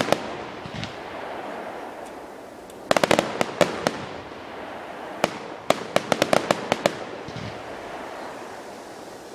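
Fireworks bursting in the sky: quick clusters of sharp crackling pops from crackle shells, one burst about three seconds in and a longer run from about five to seven seconds, with a few duller low booms between.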